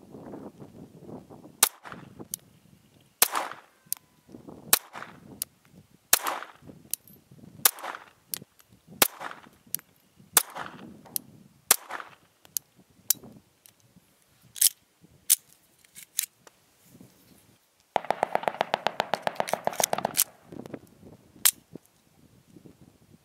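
Remington Model 51 pistol firing .32 ACP, more than a dozen sharp cracks at roughly one every one to one and a half seconds, each with a short ringing tail. Near the end there is a rapid rattle lasting about two seconds.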